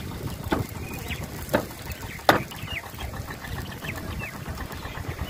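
Birds chirping in short falling calls, with three sharp knocks about a second apart, the last one the loudest.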